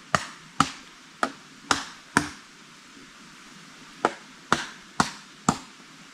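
Chopping: a blade striking wood in sharp blows, five in quick succession, a pause, then four more, about two a second.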